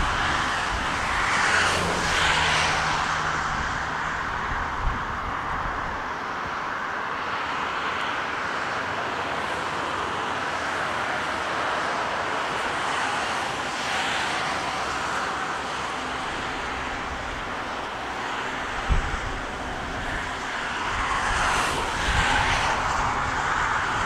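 Jet aircraft engines running steadily at a runway, with gusty storm wind buffeting the microphone in low rumbles. The sound grows louder near the end as an Airbus A320 takes off.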